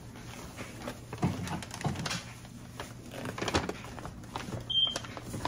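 Plastic fragrance-mist bottles being handled and set down, with scattered knocks and rustles, and a brief high squeak near the end.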